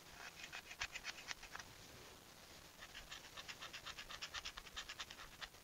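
Faint, quick scratchy clicks of a small pot-metal plug being handled against the rusty threaded opening of a tractor's housing. They come in two runs: one in the first second and a half, and a longer one from about three seconds in to near the end.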